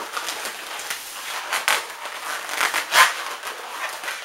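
Inflated latex modelling balloons rubbing against each other as a balloon monkey is wrapped onto a balloon palm trunk: irregular crackly scrapes, the loudest about three seconds in.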